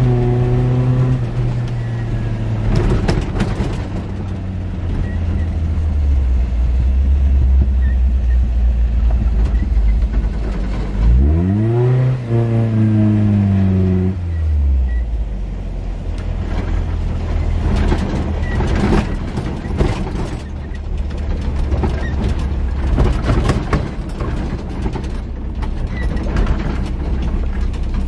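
Nissan Hardbody pickup on a bumpy dirt road, heard from inside the cab. The engine runs steadily and its revs climb and fall back once about eleven seconds in. The old truck knocks and rattles over the ruts, most busily in the second half.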